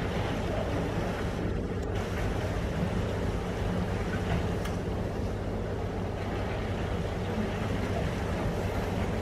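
Steady low rumble with a constant hum underneath, unchanging throughout.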